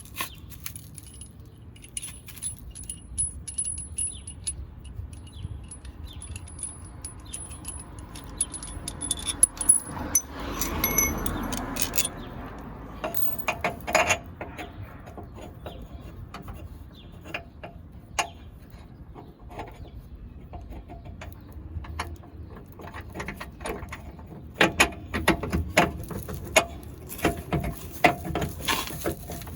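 Intermittent metallic clinks and knocks of hand tools and steel suspension parts being handled while a rear lower control arm is fitted to a Jeep Wrangler TJ, with a brief rushing swell about ten seconds in.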